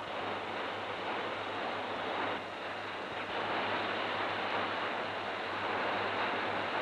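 Steady hiss with a low mains-type hum from an old 1930s film soundtrack; no distinct sound events stand out.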